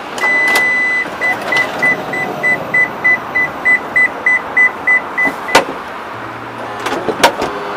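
An electronic beeper sounds one steady tone for about a second, then beeps rapidly, about three times a second, until a sharp click cuts it off. A few more clicks and knocks follow near the end.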